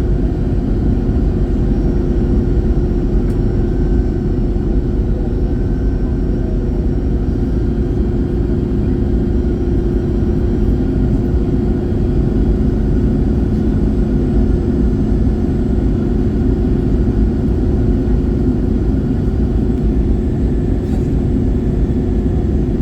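Steady cabin noise of an Airbus A321-111 in flight, heard from inside the cabin: the even drone of its CFM56 engines and the rush of air, with a constant low hum and no change in level.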